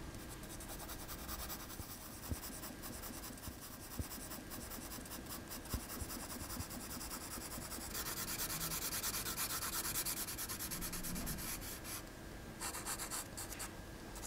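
Pencil scratching on drawing paper in fast back-and-forth hatching strokes, laying shading tone into the background. The strokes grow louder about halfway through, stop for a moment, then start again near the end.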